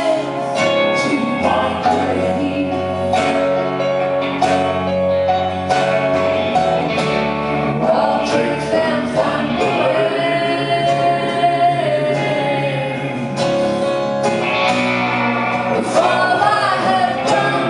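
Live band performance: a song with male and female voices singing together over guitar and rhythm accompaniment.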